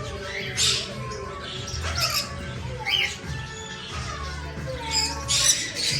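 Background music playing, with parrots giving several short, sharp squawks and chirps over it.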